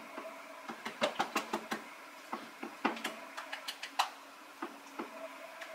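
Kitchen utensils clinking and tapping irregularly against bowls and measuring spoons, with a quick run of sharp clinks about a second in. A faint steady hum runs underneath.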